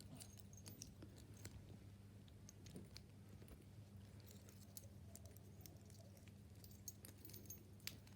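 Faint, scattered light clicks and taps of metal padlocks knocking together as a small padlock is pushed against a larger padlock's locking lever, with a couple of sharper clicks near the end, over a faint low hum.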